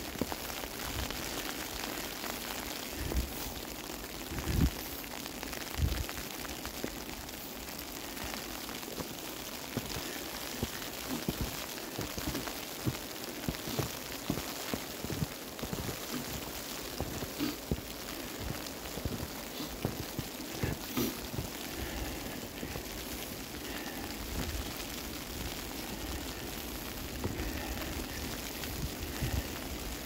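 Steady rain-like patter and hiss of heavy wet snow falling, with irregular low thumps on the microphone.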